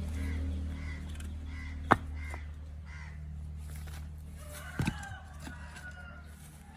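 Birds calling over a steady low hum, with two sharp knocks, the louder one about two seconds in.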